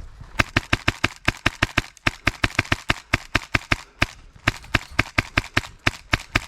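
Tokyo Marui MP7 gas blowback airsoft rifle, running on an HPA adapter, firing shot after shot at about six a second, each shot a sharp blowback crack, with a couple of brief pauses.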